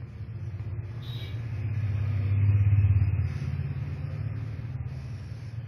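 A low rumble over a steady low hum, swelling to its loudest around the middle and then fading.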